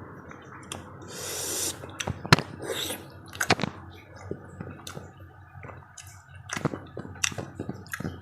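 A person chewing soft papaya close to the microphone, with scattered short wet clicks and smacks of the mouth. One longer breathy hiss comes about a second in.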